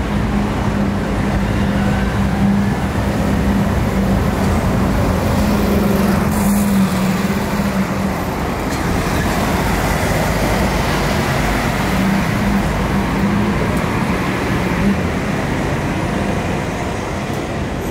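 City street traffic: cars and vans passing, with a steady engine hum through the first half and again briefly later on.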